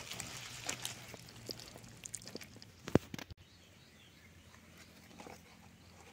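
Hands working a wet masala paste into a whole raw chicken, with a few soft clicks and slaps and one sharp click about three seconds in; after that only a quiet background.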